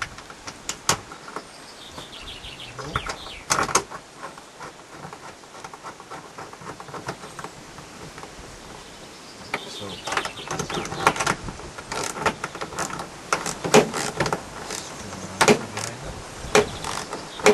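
Metal clicks and knocks as a seat-belt mounting bolt and backing plate are fitted into a van's body panel with hand tools. A short whine glides down in pitch a few seconds in, and the clicking grows busier from about ten seconds in.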